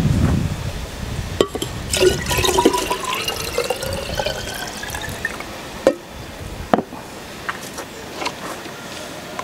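Red beet liquid poured from a glass jar into a large glass jar, a gurgling pour whose pitch climbs as the jar fills. A few sharp knocks follow as the jars are handled and set down.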